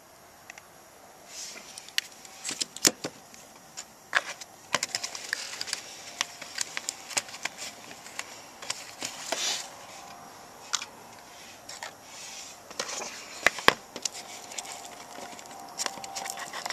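Metal Zippo lighters being handled and sorted in their carrying case: irregular sharp clicks and clinks of metal cases knocking together, with brief rustling in between.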